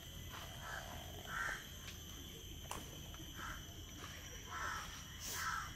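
Crows cawing, about five short calls spread out, with a couple of sharp clicks among them.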